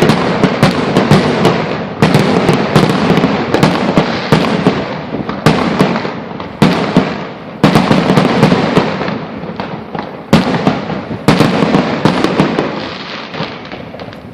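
Fireworks display: a dense barrage of bangs and crackling shells, with fresh volleys coming every second or two and each fading before the next.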